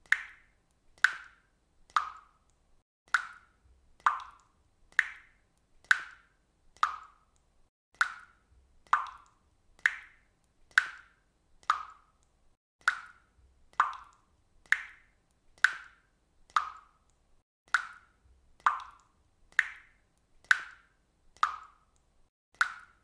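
Water dripping from a faucet: single drops plopping at a steady pace of about one a second, each a short hollow plink that dies away quickly, varying a little in pitch from drop to drop.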